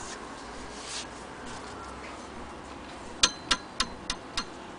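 Faint handling rustle, then five sharp metallic clicks in a row, about three a second, from an antique Singer 28K hand-crank sewing machine's handwheel and mechanism as it is worked by hand.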